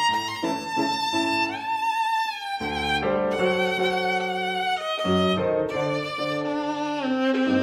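Background music: a bowed violin melody with vibrato over held low notes, the chords changing about every two and a half seconds.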